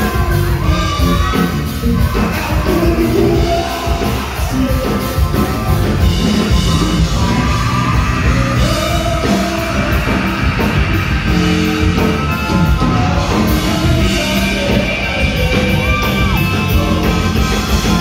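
Live rock band playing: electric guitar, bass and drums, with two men singing lead vocals into microphones.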